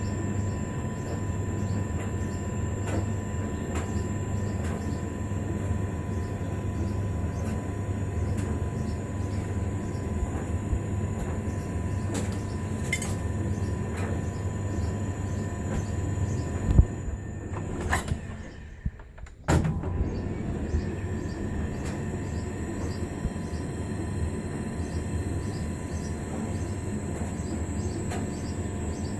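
Hotpoint TDL 30 tumble dryer running with a steady rumble and hum: the strange noise its owner is showing. There is a loud knock about 17 seconds in, then the sound drops away briefly between two sharp clicks before the steady running resumes.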